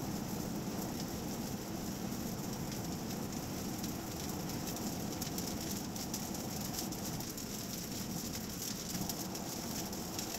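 Steady road and tyre noise inside an Audi Q8 50 TDI cabin while cruising on a motorway, an even rush with no changes.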